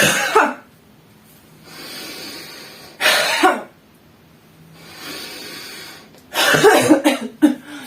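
A woman breathing in deeply through the nose and then forcing the air out in sharp 'ha' huffs, three huffs with two long in-breaths between them. The last huff breaks into a bout of coughing. These are the huffs of a breathing exercise for bringing up phlegm from a chesty cough.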